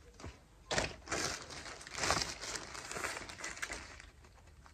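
Packaging crinkling and rustling as clothing is handled, a dense run of crackles starting about a second in and dying down near the end.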